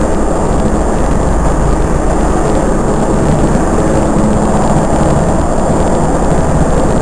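Loud, steady engine drone with a deep rumble underneath.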